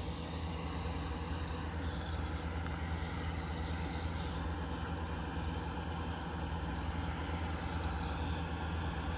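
Sand barge's engine running steadily, a low even drone with no change in speed.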